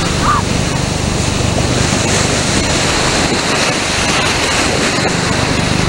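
Surf washing and foaming around a pile of sand, a steady rush of breaking water mixed with wind on the microphone.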